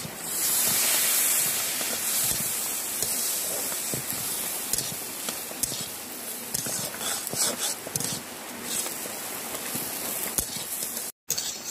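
Semolina upma cooking in a hot pan: a sudden loud hiss of steam, then steady sizzling broken by the scrape of a spatula as it is stirred.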